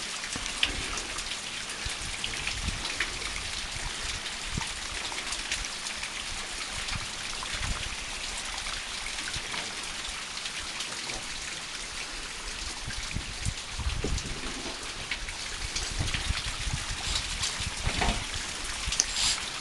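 Steady rustling hiss of handling noise on a climber's handheld camera, with scattered small clicks and scrapes. A few dull low thumps come in the second half.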